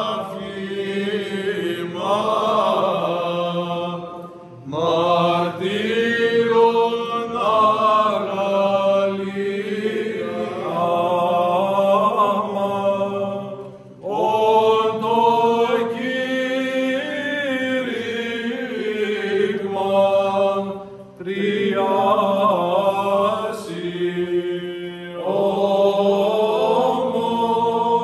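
Greek Orthodox Byzantine chant sung by male clergy voices. A melodic line moves in long phrases with brief pauses between them, over a steady low held note.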